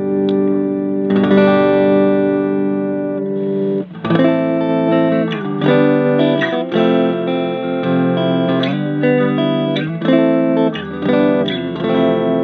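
Fernandes TEJ Telecaster-style electric guitar played through an amplifier: a chord left to ring for a few seconds, then picked single notes and short melodic phrases.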